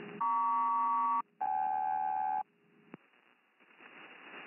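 SELCAL selective-calling tones sent over HF single-sideband radio: two tone pairs of about a second each, one after the other with a short gap, over faint receiver static. It is a SELCAL check for the aircraft code LP-JK, the tones that set off the aircraft's decoder to alert its crew.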